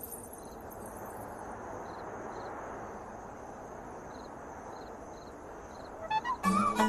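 Night ambience of crickets chirping in short repeated trills over a steady hiss. Music comes in near the end with a melody over a held low note.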